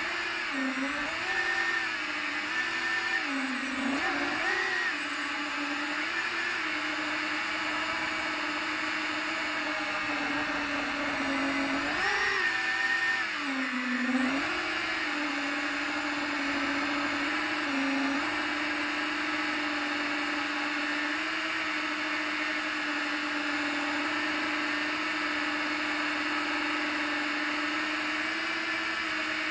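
FPV quadcopter's brushless motors whining. The pitch rises and falls with throttle several times in the first few seconds and again around twelve to fourteen seconds in, then holds steady.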